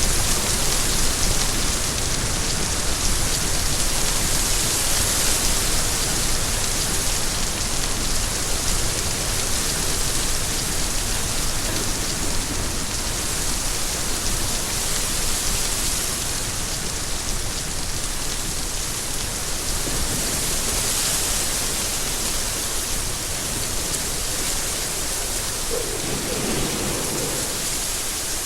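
Steady heavy rain falling, an even hiss of drops on surfaces. Near the end a low rumble of thunder begins.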